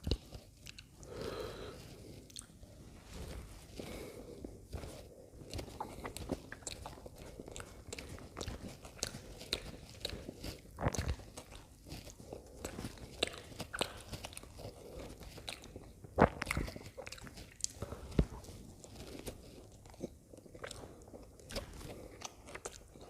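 Close-miked chewing and mouth sounds of someone eating pav bhaji (soft buttered bread rolls with mashed vegetable curry): irregular wet smacks and small clicks, with a few louder sharp clicks now and then.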